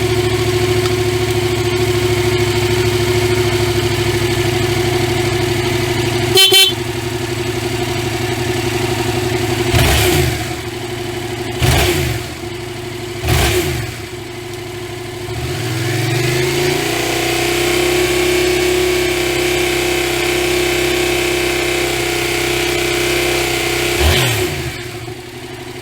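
Yamaha MT-07's two-cylinder four-stroke engine idling steadily, with a short horn beep about six seconds in. Then come three quick throttle blips, followed by the revs rising and being held up for several seconds before dropping back near the end.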